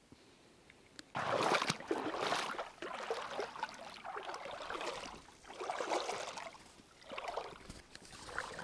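Legs in rubber waders wading through shallow lake water among reeds, sloshing with each stride, about one swish a second, starting about a second in.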